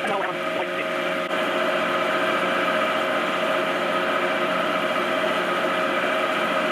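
A shop machine's motor running steadily, a constant hum with held whining tones; it gets slightly louder about a second in.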